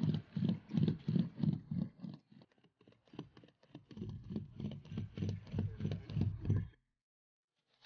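Hand seam roller rolled back and forth over the seam of an EPDM rubber roofing membrane, pressing the joint down: a rhythmic run of low rubbing strokes about three a second, a pause of about two seconds, then a second run of strokes.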